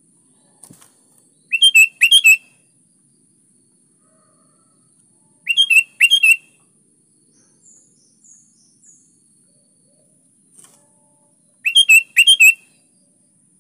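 Sooty-headed bulbul (kutilang) singing short, loud, bubbly whistled phrases, each in two quick parts, three times with pauses of several seconds between them, with a few faint high chirps in between.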